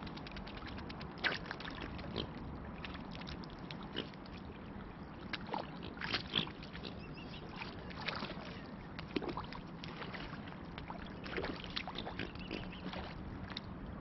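Mute swans feeding in shallow water at the river's edge: irregular splashing and dabbling as their bills and necks work the water, with a few louder splashes.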